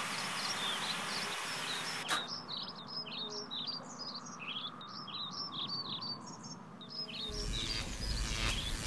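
Birds chirping, a quick run of many short high chirps that starts after a soft hiss and a click about two seconds in. From about seven seconds in, a rising noisy whoosh with a low rumble builds up over them.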